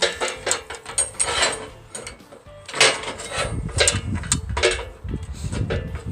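Ratchet wrench clicking in several runs with short pauses between.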